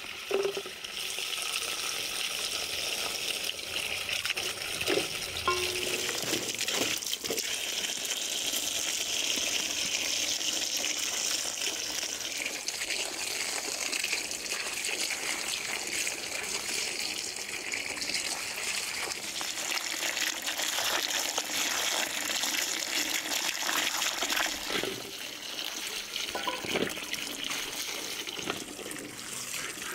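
Water pouring and splashing steadily, with a few light knocks and clinks.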